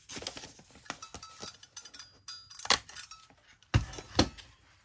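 Paper and small crafting tools handled on a work table: light clicks, taps and clinks, a sharp knock a little under three seconds in, then two louder thuds near the end.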